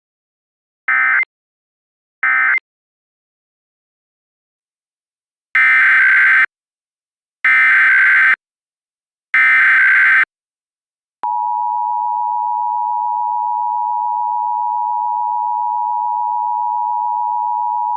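Emergency Alert System (EAS) SAME data bursts. Three short bursts, the end-of-message code, close one alert. After a few seconds' gap, three longer header bursts open the next Required Monthly Test. About 11 seconds in, the two-tone EAS attention signal starts and holds as a steady, loud dual tone.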